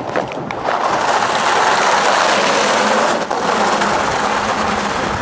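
Small kart wheels rolling fast on a concrete promenade, giving a loud, steady rolling noise that swells about a second in and briefly drops a little past three seconds.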